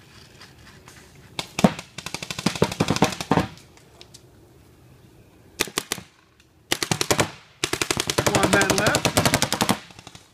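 Paintball markers firing in rapid strings of shots: a burst about a second and a half in, a short one near six seconds, then a long fast string from about seven seconds to nearly ten.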